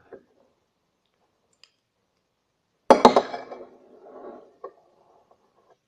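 A metal spoon clinking against a bowl: a quick cluster of sharp clinks about three seconds in, followed by a quieter clatter that trails off, with one more tap near the end.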